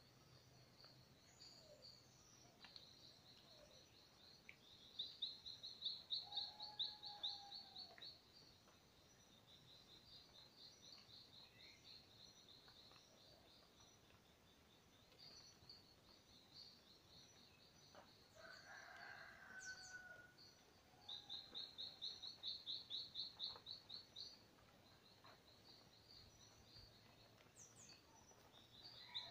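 Faint tropical forest dawn chorus of birds and insects: a steady high buzz throughout, and two loud runs of rapid high-pitched chirps, each about three seconds long, one about five seconds in and one about twenty-one seconds in. Scattered lower bird calls come between them.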